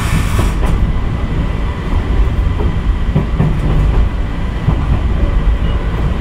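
Electric train running through a station's points, heard from inside the cab: a steady low rumble with irregular clacks as the wheels cross rail joints and switches.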